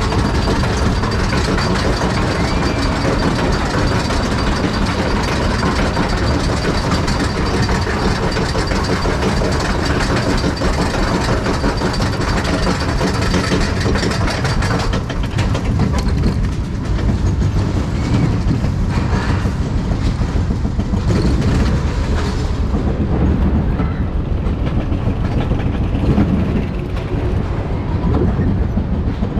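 Spinning roller coaster car running along its track, with a steady loud rattle and clatter of wheels on rail. The higher part of the noise falls away about three-quarters of the way through.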